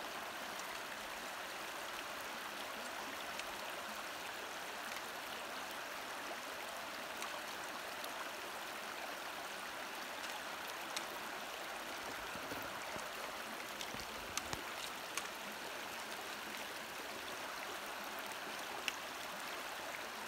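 Shallow, rocky river flowing steadily over stones, a constant rushing wash of water. A few faint clicks break through in the second half.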